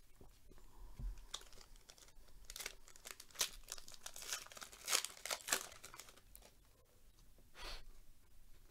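A trading-card pack wrapper being torn open and crinkled by hand: a run of crackling rips over a few seconds, then one more short rustle near the end.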